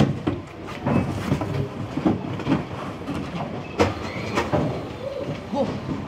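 Cardboard shipping box being unfolded and set up by hand on a packing table: scraping and flapping of the cardboard with several sharp knocks, over a steady low background rumble.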